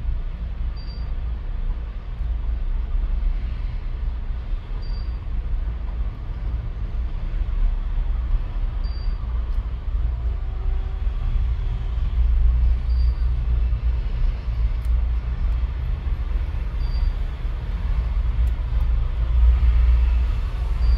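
Steady low rumble throughout, with a faint short high tone about every four seconds and a few faint clicks near the end.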